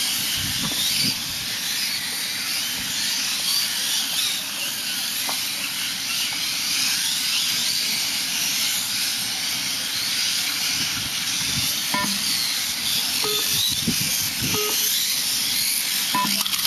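Several 1/8-scale electric RC motorcycles racing together: a high whine of their motors and gears, many pitches rising and falling as the bikes speed up and slow down, over a steady hiss.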